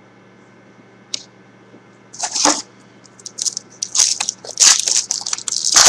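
A 2010 Topps Unrivaled football card pack being torn open by hand, its wrapper crinkling in a run of sharp rustles from about two seconds in, after one light tap about a second in.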